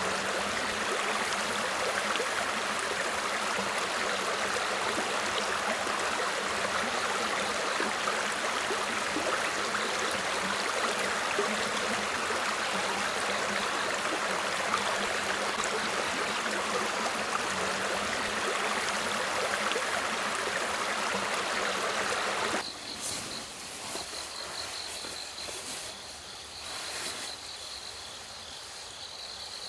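Steady rush of a flowing stream. About three-quarters of the way through it cuts off suddenly, giving way to quieter chirping of night insects with a repeating high trill.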